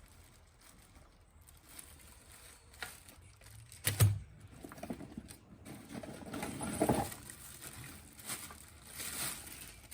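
Power tools and their packaging being handled: scattered knocks and clicks with rustling, the loudest a knock with a low thump about four seconds in.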